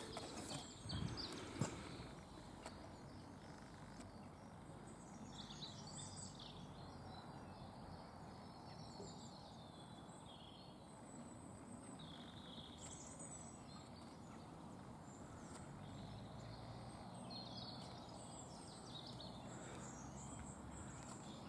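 Faint outdoor ambience with small birds chirping now and then, and a few knocks from handling in the first two seconds.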